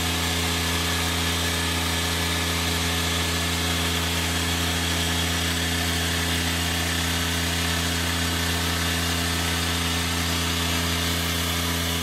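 Self-propelled root-crop harvester running: a steady, unchanging mechanical drone with a low hum and a hiss over it.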